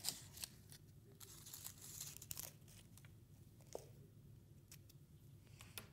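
Faint rustling and crinkling of a brown paper bag being handled on a table, with a few light clicks.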